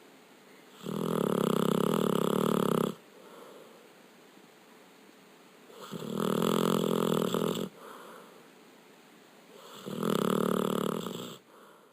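Labrador retriever snoring in its sleep: three long, loud snores about four seconds apart, each lasting about two seconds, with quieter breathing between them.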